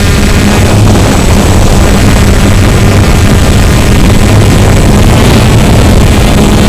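Small quadcopter drone's electric motors and propellers running steadily, a low hum under a loud rush of air noise.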